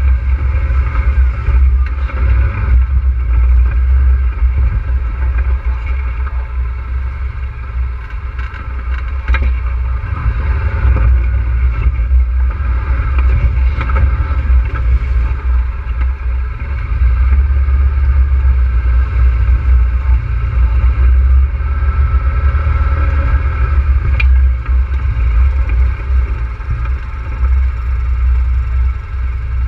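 ATV engine running as the quad is ridden along a rocky wash, with a heavy low rumble throughout.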